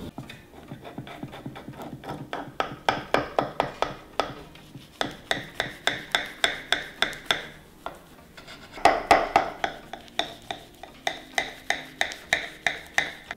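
Knife sawing back and forth through the crisp, flaky baked puff-pastry crust of a pie, a rapid rasping crunch at about four strokes a second, in three runs.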